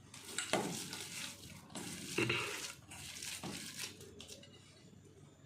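Hands mixing a minced chicken and soaked-bread mixture in a bowl: a run of irregular handling and rubbing noises.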